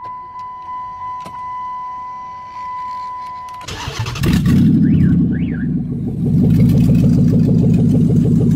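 A car's electronic chime tone pulses steadily. Then, about three and a half seconds in, the engine cranks and fires, and it settles into a loud, steady run.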